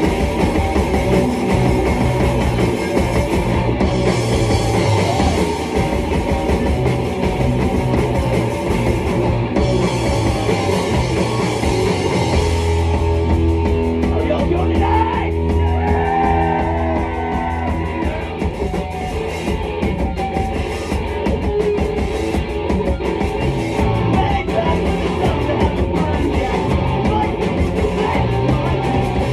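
Rock band playing live: distorted electric guitars, bass and drum kit. About twelve seconds in the cymbals drop away and held, ringing chords sustain for several seconds before the drums come back in.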